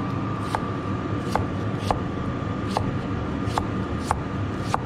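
Cleaver slicing through a cucumber onto a wooden chopping board: about seven sharp knocks at uneven intervals of half a second to a second, over a steady background hum.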